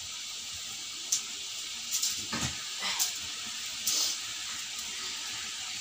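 Small whole fish being dropped into a pot of curry gravy, giving several short wet plops over a steady hiss.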